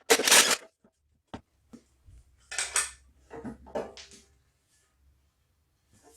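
Metal clinking and rattling as the bolts and sheet-metal access panel are taken off a single-stage snow blower's frame with hand tools. The loudest clatter comes right at the start, a single sharp knock follows about a second and a half in, and more clinks come in clusters after that.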